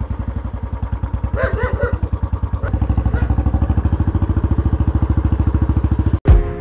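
Royal Enfield Bullet's single-cylinder four-stroke engine running with a rapid, even thump. It cuts off abruptly near the end, and music takes over.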